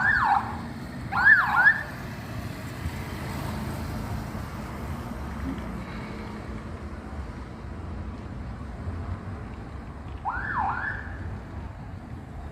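Short siren bursts, each a quick pair of rising and falling whoops: one at the start, another about a second in, and a third near the end, over steady background noise.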